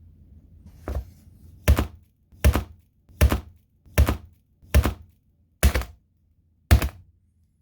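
Eight sharp chopping blows, roughly one every 0.8 s, the first one lighter: a hatchet striking a tablet computer.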